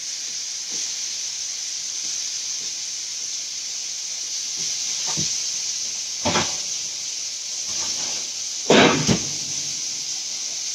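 Steady hiss of food frying in a hot pan, with a few clatters of cookware, the loudest about six and nine seconds in.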